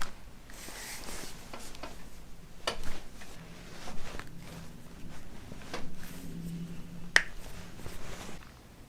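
Joints popping during a chiropractic adjustment: several sharp cracks, the loudest about three and seven seconds in, over soft rustling of hands and fabric.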